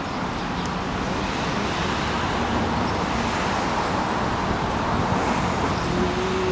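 Steady road traffic noise, an even wash of sound with no distinct events.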